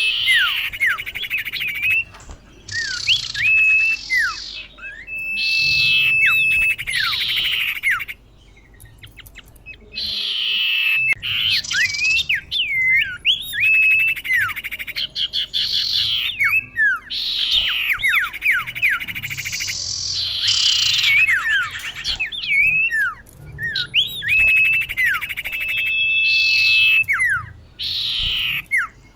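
Female common iora (cipoh) calling, the call used as a lure for males: repeated phrases of held whistles, quick falling slurred notes and harsh buzzy rasps, with short pauses between bursts and a longer pause about eight seconds in.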